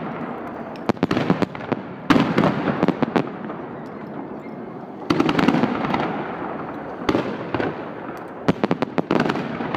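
Fireworks display: aerial shells bursting with sharp bangs, each big burst followed by dense crackling. The biggest bursts come about two and five seconds in, with quick clusters of pops near the end.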